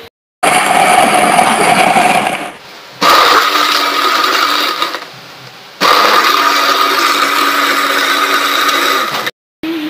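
Electric countertop blender running, blending mango, milk and ice into a shake. It runs in three spells of two to three seconds each, stopping briefly between them.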